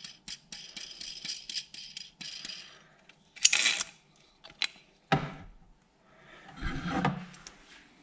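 A steel nut being spun by hand onto threaded rod: a light, quick metallic rattling for the first couple of seconds. Then a louder clatter, a click and a low knock as the caster-wheel and rod assembly is handled.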